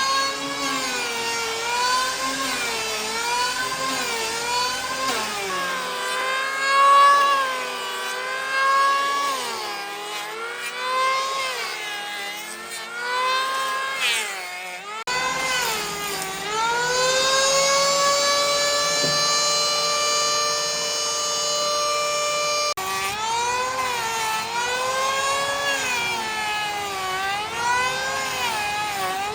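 A power tool working wood, its motor pitch repeatedly dipping and recovering as it bites under load. About halfway through it speeds up and runs at a steady high pitch for several seconds, then goes back to dipping under load.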